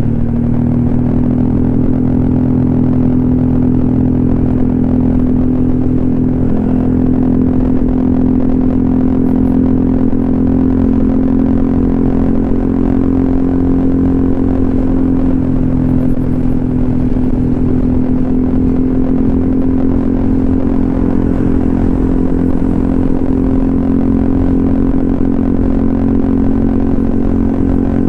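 Honda ADV 150 scooter's single-cylinder engine through an SC Project aftermarket exhaust while riding. The revs climb slightly in the first second, then hold at a steady cruising pitch.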